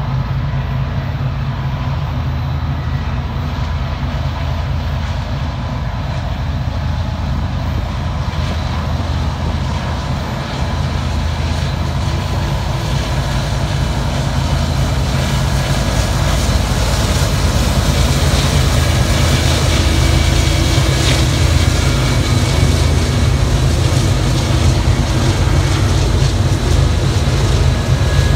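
Union Pacific freight train's diesel-electric locomotives running, a deep steady engine drone that grows louder from about halfway through as the locomotives draw close and pass.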